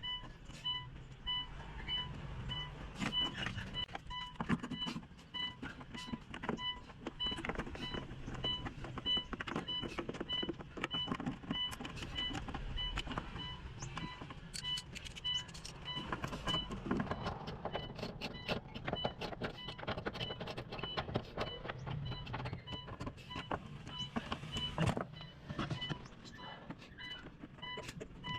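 Irregular metallic clicks, knocks and clatter of parts and hand tools while a new fuel pump and fuel filter are being fitted, with a steady electronic beep repeating about twice a second in the background.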